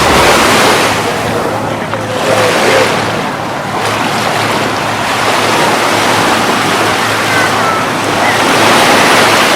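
Ocean surf breaking and washing up a sandy beach: a steady rushing that swells and eases every few seconds.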